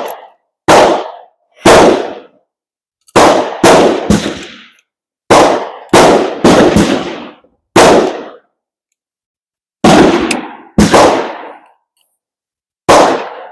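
Gunfire from several shooters on a firing line: about a dozen loud rifle shots at irregular intervals, half a second to two seconds apart, each trailing off in a short echo.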